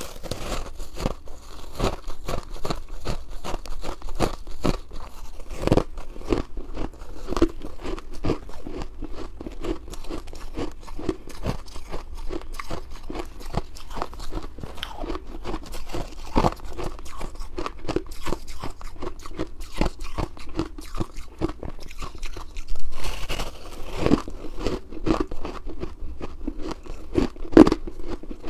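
Shaved, blended ice crunching as it is bitten and chewed: a continuous run of many quick, crisp crunches.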